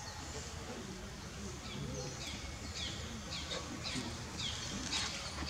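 A small bird chirping repeatedly, short high falling chirps about two to three a second, starting a couple of seconds in, over steady outdoor background noise.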